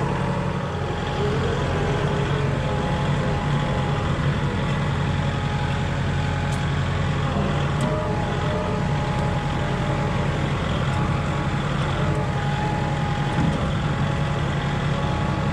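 Kubota compact tractor's diesel engine running steadily under way, heard from the driver's seat, with a low hum.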